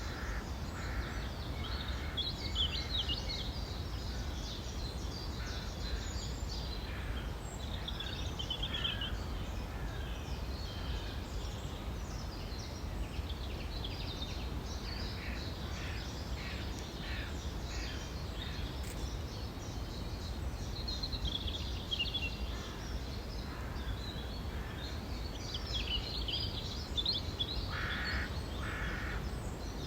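Several songbirds singing together in spring, overlapping runs of rapid high notes and chirps, over a steady low background rumble.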